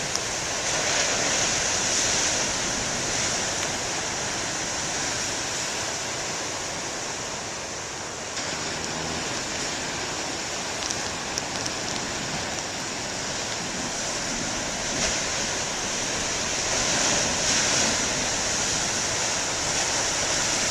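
Ocean surf breaking and washing up the beach: a steady rushing wash that swells louder a second or two in and again near the end as bigger waves break.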